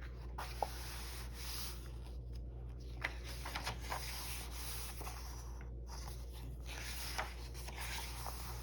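Paper rustling and rubbing as a picture book's pages are handled, with a few soft clicks, over a steady low hum.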